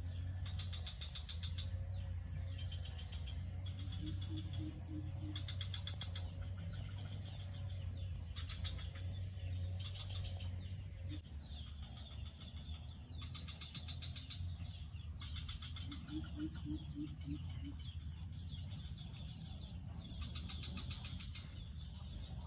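Outdoor insect chorus: repeated high, buzzy trills about a second long, one after another, over a steady low hum. Twice, about 4 s and 16 s in, a short run of four or five low pulsed calls.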